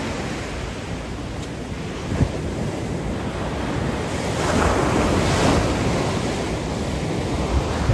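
Sea surf washing onto a sandy beach, with wind buffeting the microphone; one wave surges loudest about halfway through.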